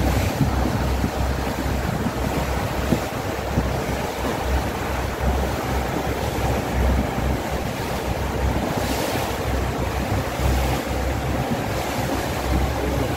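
Wind buffeting the microphone, with the rush of water against a moving boat beneath it.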